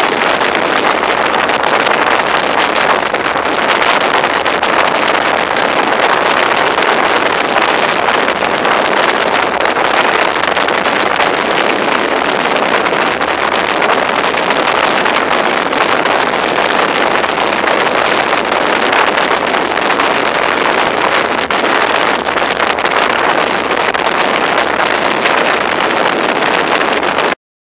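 Motorboat running at speed: a loud, steady rush of wind over the microphone mixed with engine and water noise, cutting off suddenly near the end.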